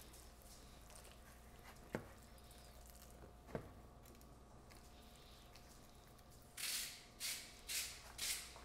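Serving spoon working guacamole out of a bowl onto a plate: two light knocks, then near the end four short scraping, squishing strokes.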